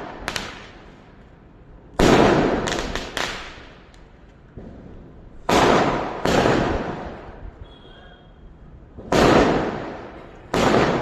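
Fireworks going off: loud bangs in groups of two or three a few seconds apart, each dying away in a long echo.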